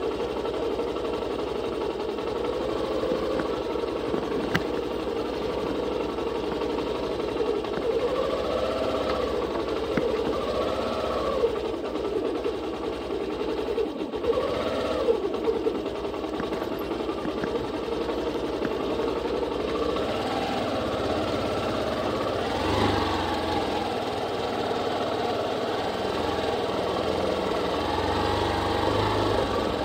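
A vehicle engine runs steadily while the vehicle drives a rough dirt road. Its pitch rises and falls with the throttle several times, and a few sharp knocks come from the bumpy track.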